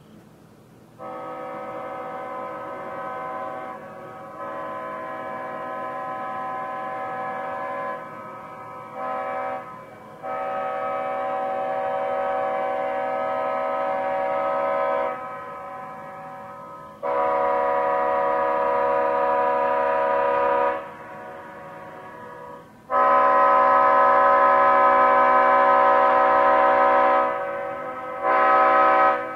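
Leslie S5T five-chime locomotive air horn blown in a string of blasts of varying length, each a steady multi-note chord. The longest and loudest blast comes in the last third, followed by a short one near the end.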